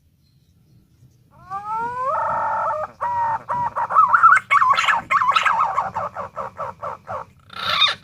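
Punai daun green pigeon calling: a few rising whistled notes lead into a held note, then a fast run of quick, warbling notes that break off, with more calls starting near the end.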